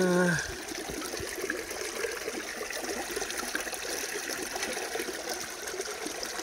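Creek water running through a sluice box: a steady rippling, trickling flow. Right at the start a short hummed voice sound slides down in pitch and stops.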